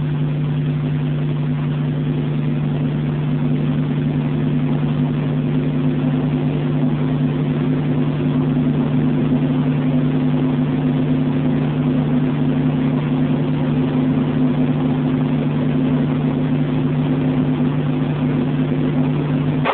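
Steady drone of a police helicopter's engine and rotors: a constant hum of several fixed tones over an even hiss, growing slightly louder.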